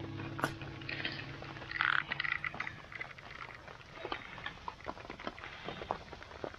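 Scattered clicks and snaps from a campfire of burning sticks in a metal fire ring as more sticks are laid on it, with a brief animal call about two seconds in.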